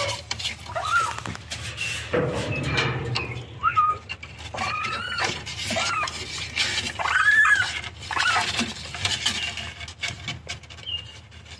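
Baby raccoon stuck inside a hay baler calling over and over in short high cries that rise and fall, about one a second; these are a trapped kit's distress calls. A scuffling rustle comes about two seconds in.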